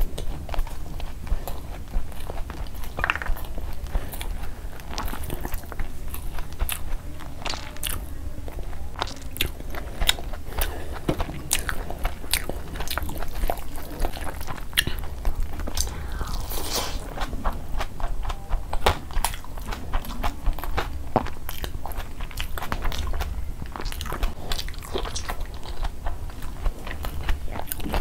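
Close-miked eating: a person chewing and smacking on mouthfuls of spiced rice and meat eaten by hand, with many short, wet mouth clicks.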